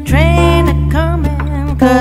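A woman singing a blues song over acoustic guitar.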